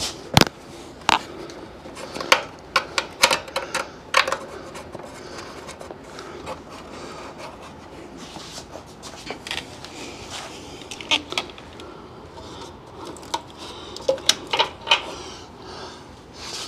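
Irregular sharp clicks and taps of metal bolts and parts being handled while grille bolts are started by hand, in scattered clusters with quieter stretches between.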